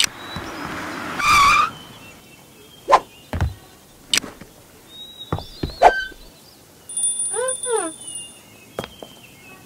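Animation sound effects: a short whoosh at the start, several sharp clicks and knocks from toy bricks and figures, and a quick warbling chirp run near the end.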